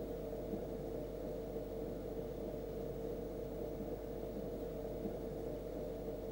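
A steady hum with a constant mid-pitched tone, level throughout, with no other events.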